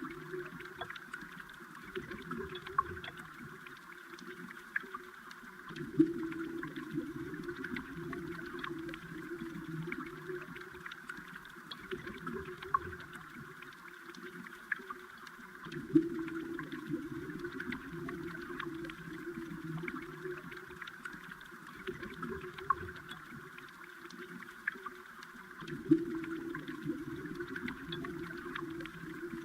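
Flowing water heard from underwater: a steady gurgling rush with scattered small ticks and clicks, swelling in a louder surge three times, about ten seconds apart.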